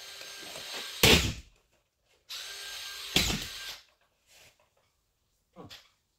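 Drywall screw gun motor spinning with a steady whir, twice loading up as it drives a screw into drywall, first about a second in and again about three seconds in. Near the end there are a few faint knocks.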